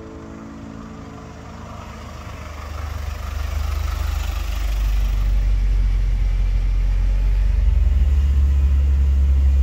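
Low, steady rumble of a vehicle driving on a road, swelling louder over the first few seconds and then holding.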